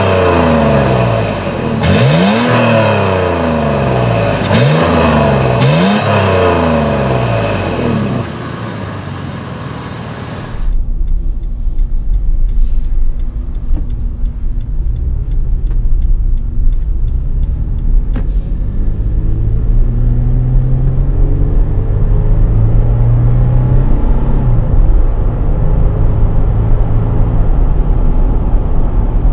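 2018 Toyota 4Runner's 4.0-litre V6 heard at the exhaust tailpipe, revved quickly about four times, roughly one rev every two seconds, then settling to idle. After an abrupt change, the same engine is heard from inside the cabin while driving, with a steady low road rumble and the engine note rising as it accelerates.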